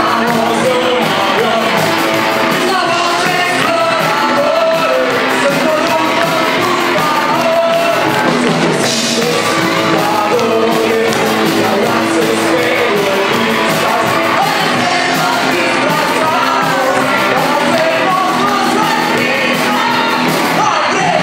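Live band music with singing: electric guitar and drum kit under a lead singer on a microphone and a group of singers, with some shouting mixed in.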